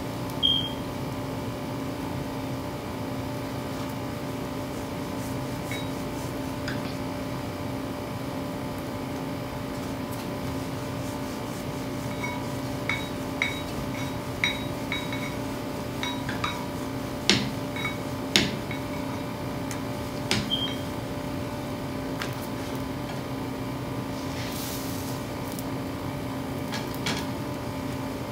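A steady mechanical hum from a kitchen appliance with a few fixed pitches. Over it come scattered light knocks and clicks as paratha dough is rolled and handled on a round rolling board with a rolling pin, most of them in a cluster in the middle.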